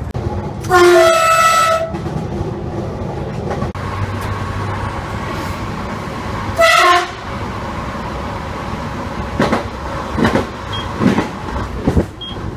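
A train's horn sounded twice, heard from inside the driver's cab over the train's steady running noise: a blast about a second long just under a second in, then a shorter blast about seven seconds in.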